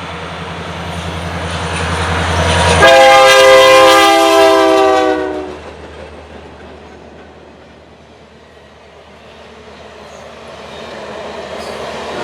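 EMD SD70ACu diesel locomotive passing: its rumble builds, then its horn sounds one long multi-note chord about three seconds in, the pitch dropping as it goes by. The rumble fades and then builds again toward the end.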